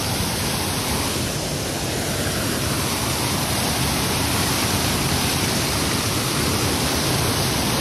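Water gushing up under pressure from a burst underground water pipe: a steady rushing spray of water, growing slightly louder over the few seconds.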